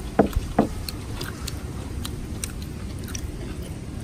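Someone biting and chewing crispy batter-fried enoki mushrooms: two loud crunching bites within the first second, then a run of small crisp crunches as the chewing goes on.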